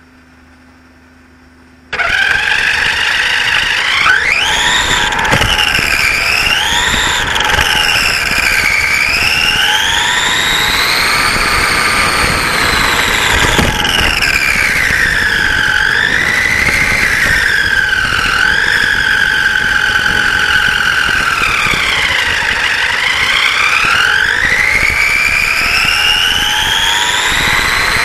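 Radio-controlled racing saloon car's motor and drivetrain whining, heard close from a camera on the car. It starts suddenly about two seconds in and rises and falls in pitch as the car speeds up and slows.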